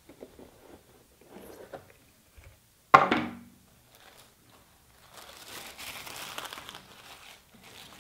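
Hands unpacking a cardboard gift box: faint handling rustles, a sharp knock about three seconds in as the lid comes off, then tissue paper crinkling as it is folded back from the contents.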